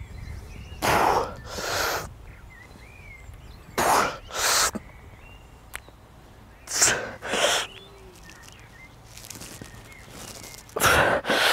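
A man breathing hard in sharp, forceful puffs while doing pull-ups, two breaths together about every three seconds, one pair for each rep. Birds chirp faintly in the background.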